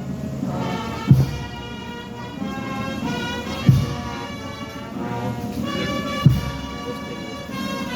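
Slow music: a held wind-instrument melody over a deep drum stroke about every two and a half seconds.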